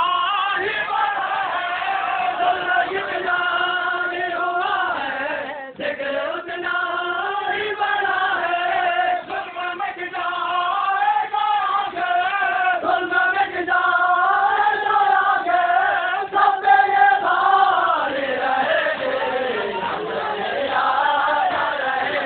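A crowd of men chanting a Muharram mourning lament (noha) together in long, drawn-out notes that slowly rise and fall.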